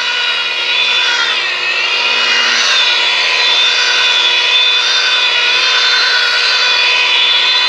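Electric rotary buffer running at about 600 rpm, its foam pad working buffing compound into a car hood's paint. It makes a steady whine of several tones that wavers slightly in pitch as the pad moves.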